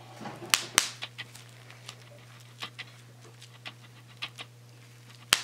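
Bubble wrap popping under a fingertip: a series of sharp, irregular pops, one loud pop under a second in and another near the end, with smaller pops and crackles in between. A faint steady low hum runs underneath.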